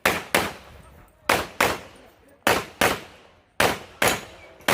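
Handgun fired in quick double taps, two shots about a third of a second apart, with a pause of roughly a second between pairs: four pairs and the first shot of a fifth. This is the rhythm of engaging IPSC targets two hits each.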